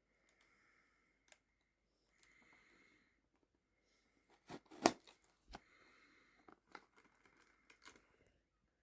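Small blind-box packaging being torn open and crinkled by hand: faint tearing with scattered sharp clicks, and one louder snap about five seconds in.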